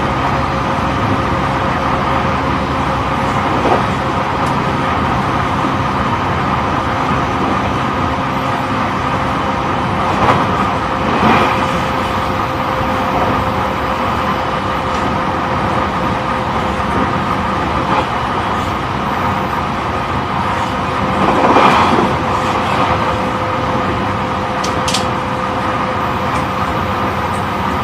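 Running sound of an E531 series electric train heard inside a motor car at speed: steady rolling noise with a steady hum, broken by a few short knocks, the loudest about three-quarters of the way through.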